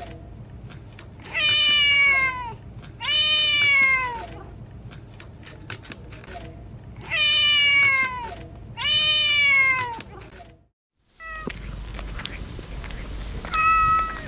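Kitten meowing: four drawn-out meows in two pairs, each falling in pitch, then after a short break a brief, higher, steadier call near the end.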